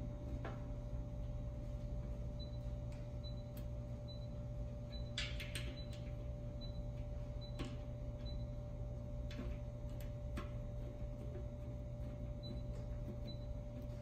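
Scattered small clicks and taps from hands working on an air compressor's Furnas-style pressure switch, over a steady low hum and a faint high tick about twice a second.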